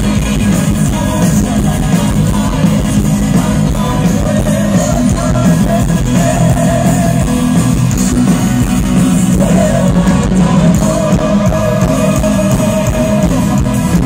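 Symphonic metal band playing live through a PA: distorted electric guitars, bass and drums, with sung vocals that hold long notes at times.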